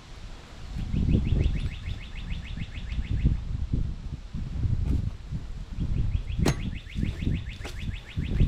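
Wind buffeting the microphone in gusts, with a bird trilling twice, a fast, even run of about ten short notes a second.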